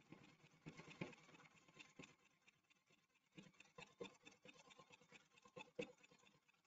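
Faint Pfaff embroidery machine stitching a seam in the hoop: a quick, even patter of needle strokes for the first couple of seconds that thins to scattered light clicks for the rest.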